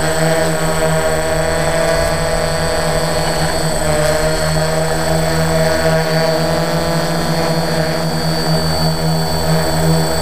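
Multirotor drone's electric motors and propellers running steadily while it hovers and flies, a buzzing hum made of several steady tones that waver slightly in pitch.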